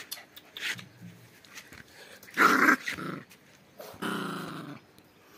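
Puppy growling in short angry bursts: a loud rough one about halfway through, then a longer growl of nearly a second.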